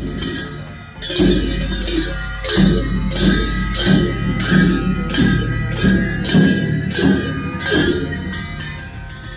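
Tibetan Buddhist ritual frame drum (nga) struck steadily with its curved stick, about one and a half beats a second, over a sustained ringing tone and a low hum.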